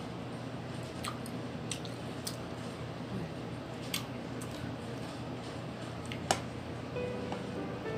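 Close-miked eating: chewing and mouth sounds with a few faint clicks, and a sharp clink of a metal spoon against the soup bowl about six seconds in. Soft background music starts near the end.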